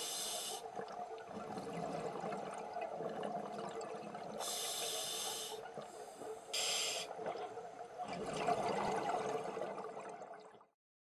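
Scuba diver breathing through a regulator underwater: short hissing inhalations at the very start, about four and a half seconds in and about six and a half seconds in, and a gurgle of exhaled bubbles between about eight and ten seconds. The sound cuts off suddenly just before the end.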